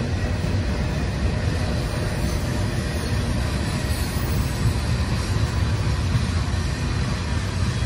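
A CSX freight train's covered hoppers and black tank cars rolling past, with a steady rumble of steel wheels on rail.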